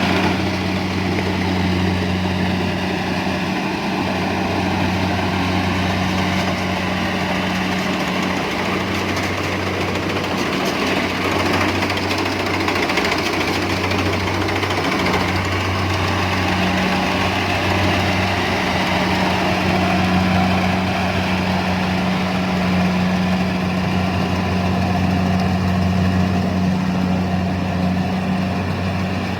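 Engine of a rice harvesting machine running steadily at a constant speed, with a deep, even hum and mechanical clatter over it.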